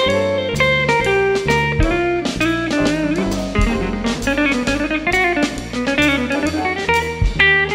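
A jazz band playing live, led by an electric guitar picking a solo line over double bass and drums.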